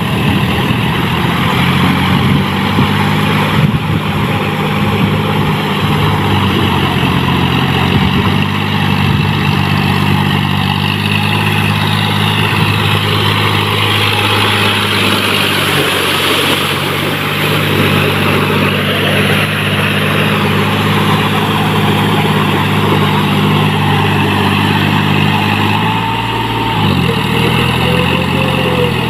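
John Deere 5045D tractor's three-cylinder diesel engine running steadily under load, its pitch shifting a little now and then, as the cage wheels churn through flooded paddy mud.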